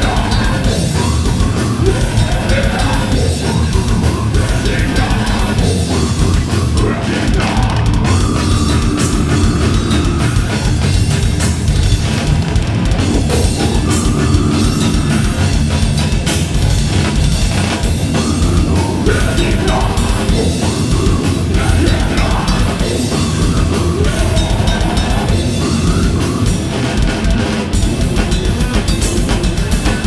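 Live death metal band playing loud and without a break: a drum kit with dense, rapid hits under distorted electric guitars.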